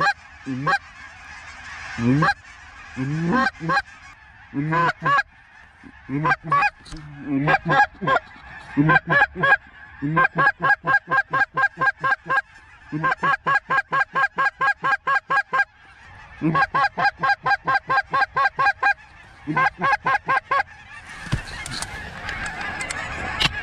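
Snow geese calling: sharp repeated honks, scattered at first, then in fast even runs of about four or five a second. Near the end the calls give way to a rising wash of noise.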